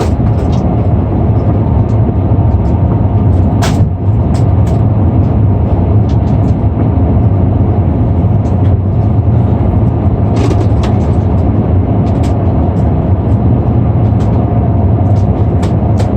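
Steady cabin noise inside an Airbus A340-600 in flight: a loud rush of air and engine drone over a low hum, with scattered light clicks and rattles.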